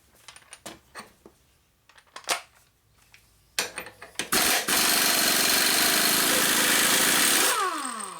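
Light clinks of a socket being fitted, then an impact wrench hammering a sprocket nut loose for about three seconds and spinning down with a falling whine. The nut was held with heavy red Loctite.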